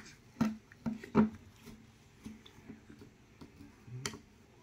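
A plastic spoon scooping frozen strawberry ice cream and knocking against the bowl a few times, the loudest knock about a second in.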